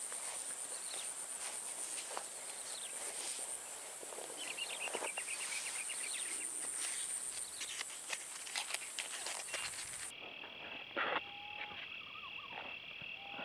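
Swamp insects keeping up a steady high-pitched buzz, with scattered short chirps and clicks over it. About ten seconds in the high buzz cuts off suddenly and a lower steady insect whine carries on.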